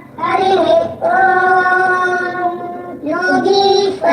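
A child singing a shloka in a chanting melody, holding long steady notes, with a short breath about three seconds in.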